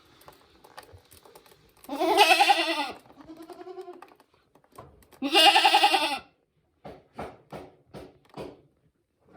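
Goats bleating: two loud, wavering bleats about three seconds apart, with a softer call between them, then a quick run of short, sharp sounds near the end.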